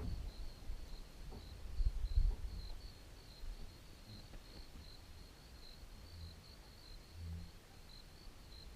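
Crickets chirping in a steady run of short pulses at one high pitch, with a low rumble in the first couple of seconds.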